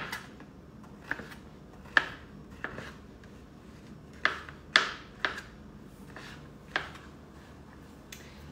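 Kitchen knife slicing through a large mushroom and knocking on a plastic cutting board: about eight sharp, irregularly spaced knocks.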